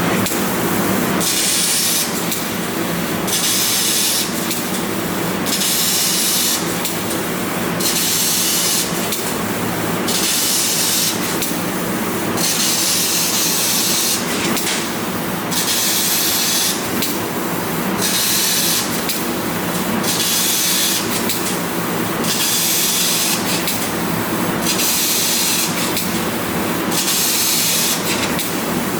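6 kW fiber laser cutting machine cutting carbon steel sheet: a loud hiss of cutting gas starts and stops over and over, each burst lasting about a second, over a steady machine noise.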